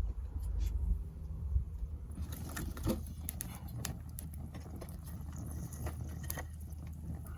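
Wood fire crackling in a campfire grill, with scattered sharp pops from about two seconds in over a low steady rumble.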